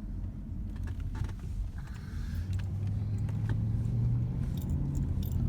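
Car cabin noise while driving: a steady low engine and road rumble, the engine hum growing a little stronger about halfway through, with a few light clicks near the end.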